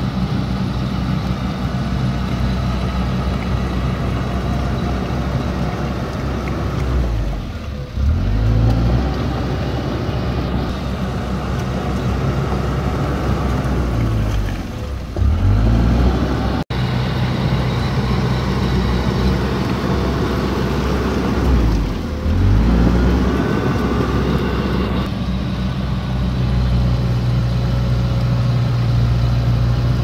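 Komatsu D31P bulldozer's diesel engine running steadily under load, its pitch dipping and picking back up three times, about eight, fifteen and twenty-two seconds in.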